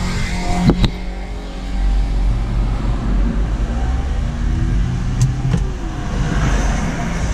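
Car engine and road noise heard from inside the cabin as a steady low rumble, with a few sharp clicks near the start and again about five seconds in.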